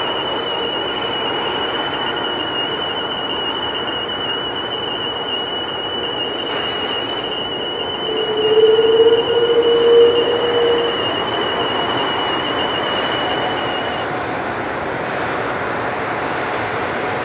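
Airbus A330-200's Rolls-Royce Trent 700 turbofans running at low taxi thrust as it lines up for takeoff: a steady rushing jet noise with a thin high whine that stops near the end. A lower drone swells louder for about three seconds around the middle.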